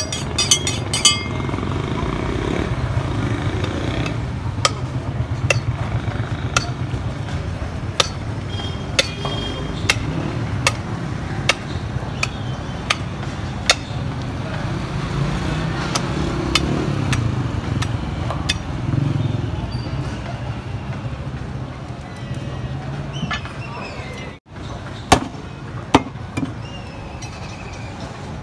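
Steady rumble of street traffic and voices, with scattered sharp clicks and knocks from a butcher's knife working a beef carcass and striking a wooden chopping block.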